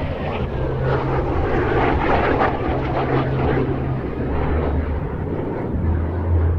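Jet noise from a Kawasaki T-4 trainer's twin turbofans as it flies past, a rushing sound that swells about a second in and eases off after about four seconds.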